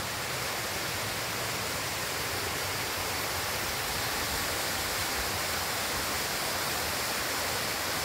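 Steady, even rushing noise of a waterfall's falling water, the fall running low outside the rainy season.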